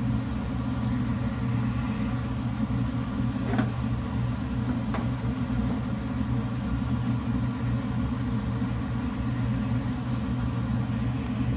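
Steady low mechanical hum of a kitchen appliance running, with two faint light clicks a few seconds in.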